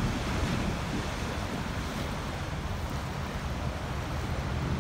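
Wind buffeting the microphone over a steady wash of sea water.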